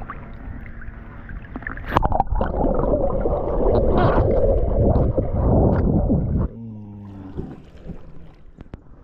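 A released flathead catfish splashes at the lake surface beside the camera. About two seconds in, the camera goes under the water and the sound becomes a loud, muffled underwater rush of water and bubbling. This stops abruptly about six and a half seconds in, leaving quieter water sounds with a low hum.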